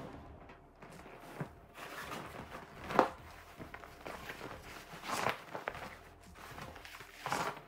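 Footsteps with scattered knocks and scrapes, one sharper knock about three seconds in.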